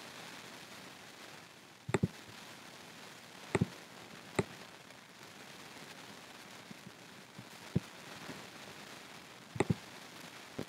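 Computer mouse clicks, some single and some in quick pairs like double-clicks, over a low steady hiss.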